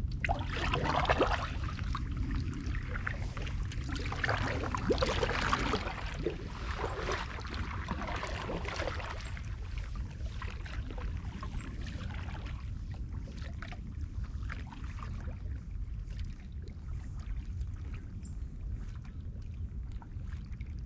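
Double-bladed kayak paddle strokes splashing in calm water as the kayak pulls away. The splashes are loudest in the first several seconds, then grow fainter and sparser over light water lapping.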